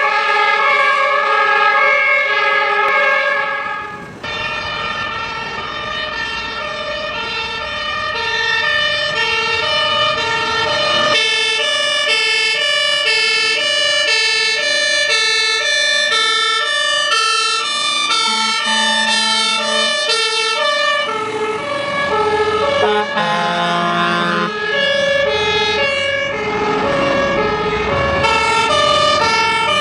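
Fire engine two-tone sirens, several layered at different pitches, each switching back and forth between a high and a low note about every half second. The mix of sirens changes abruptly about four seconds in, again around eleven seconds, and once more around twenty-one seconds.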